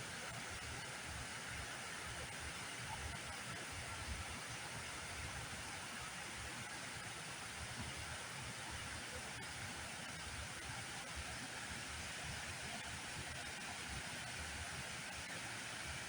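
Steady rushing outdoor noise with irregular low rumbles underneath.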